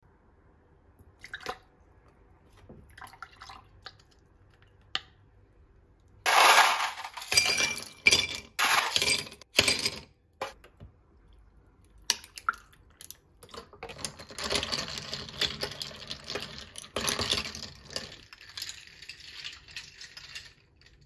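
Ice cubes dropped into a glass tumbler, a few light clinks at first and then a run of loud clattering clinks from about six to ten seconds in. Later, liquid is poured over the ice for several seconds, with ice clinking against the glass.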